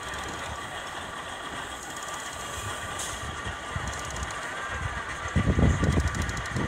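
Narrow-gauge steam locomotive 'Duncan' moving slowly, with a steady hiss, a few light clicks and ticks, and a louder stretch of low rumbling about five and a half seconds in.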